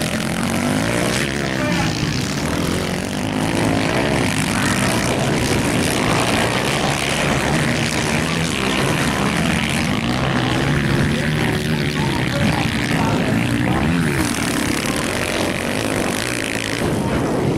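Dirt-bike engines revving on a motocross track, pitch rising and falling as the riders work the throttle through the turns.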